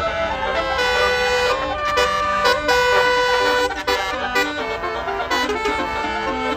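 Tour bus's basuri musical horn playing a tune: held notes that step from one pitch to the next, over the bus engine's low running.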